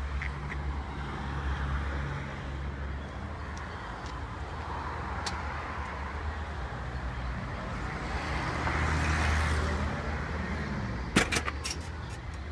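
Road traffic: a steady low engine hum, with a passing vehicle swelling up and fading about two-thirds of the way through. Near the end come a few sharp clicks and knocks.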